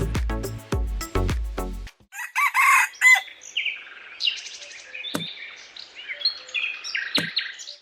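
Music with a plucked, bouncing beat stops about two seconds in; a rooster then crows briefly, followed by scattered bird chirps and two sharp clicks.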